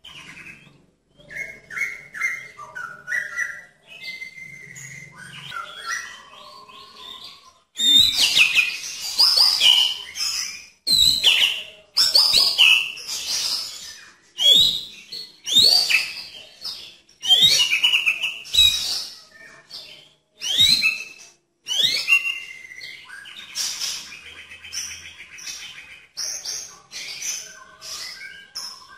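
White-rumped shama (murai batu) singing: soft, falling whistled notes at first, then from about eight seconds in a run of loud, rapid, sweeping phrases, easing to softer chatter with a short buzzy trill near the end.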